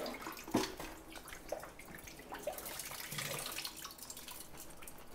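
Water dripping and trickling back into a sump basin off an old submersible sump pump as it is lifted out on its discharge pipe, with a light knock about half a second in.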